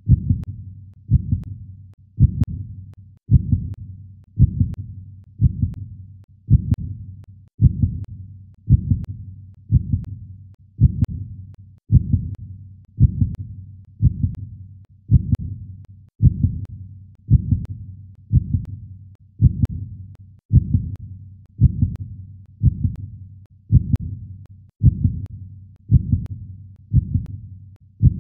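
Slow, steady low thumps, about one a second, each dying away before the next.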